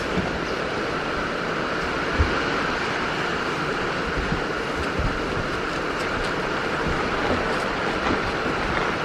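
Steady hiss of rain falling, with a couple of soft low thumps about two and five seconds in.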